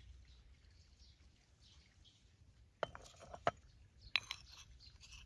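Miniature cookware and utensils clinking and tapping: a quick run of sharp clicks about three seconds in, then two more a second later, over a faint steady hiss.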